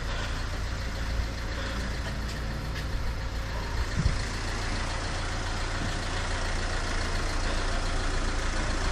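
A van engine idling steadily, with a short knock about four seconds in.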